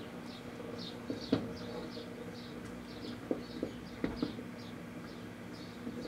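Microwave oven running with a steady hum while the computer hard drive inside arcs and burns, giving several sharp snaps, the loudest about a second and a half in. A run of high chirps, about three a second, carries on throughout.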